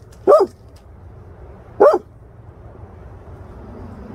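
Dog barking: two short, sharp barks about a second and a half apart, over a faint steady low background noise.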